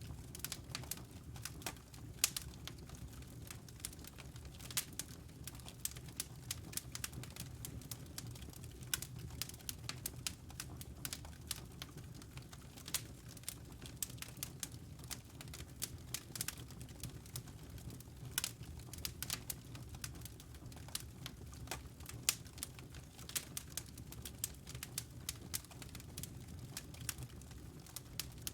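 Wood fire burning in a fireplace: logs crackling with irregular sharp pops and snaps, over a steady low rumble of the flames.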